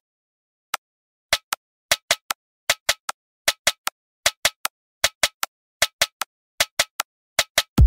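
Sharp keystroke clicks of a typing sound effect, a few scattered at first, then coming unevenly in quick clusters of two or three, several a second. A deep drum beat lands right at the very end.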